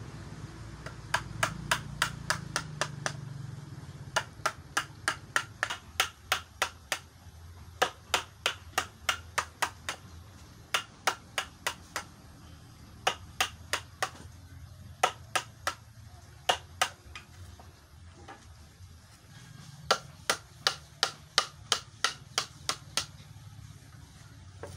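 A hammer tapping a chisel to carve out the hollows of a wooden tray: sharp, rapid strikes, about four a second, in runs of a few seconds separated by short pauses.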